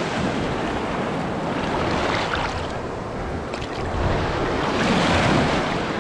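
Ocean surf washing onto the beach, swelling and easing as waves come in, with wind buffeting the microphone.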